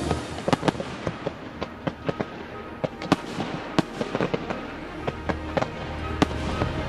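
Fireworks display: an irregular string of sharp bangs and cracks from bursting shells and rising comets, several close together at times, with music underneath.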